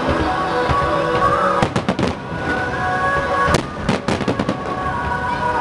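Aerial fireworks shells bursting: a few sharp bangs and quick runs of crackling reports in clusters near the middle. Music plays steadily underneath.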